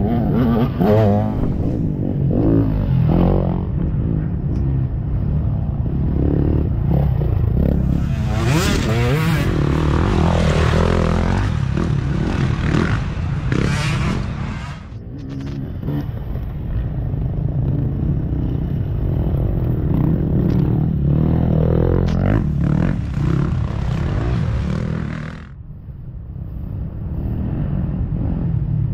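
Dirt bike engines revving up and down as riders pass in turn. The sound drops away briefly about fifteen seconds in and again near the end, then picks up with the next bike.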